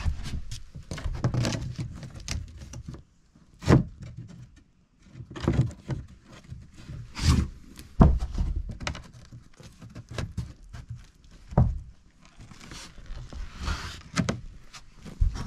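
Footsteps and thuds on old wooden porch floorboards: half a dozen heavy thunks a second or two apart, with scuffing and shuffling between them.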